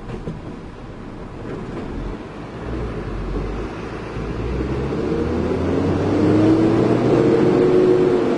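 A heavy diesel engine growing steadily louder as it comes closer or takes on load, with a whine that rises and then falls over the last few seconds.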